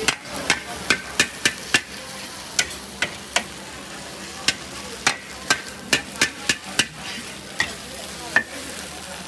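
Metal spatula clanking and scraping against a wok while stir-frying kway teow noodles, about twenty sharp strikes in irregular runs, over a steady sizzle of frying.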